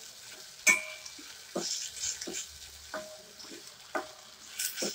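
A steel spoon stirring and scraping in a stainless steel pot, knocking against the metal about six times, some knocks ringing briefly, over the faint sizzle of chopped onion, tomato, potato and ginger paste frying in oil.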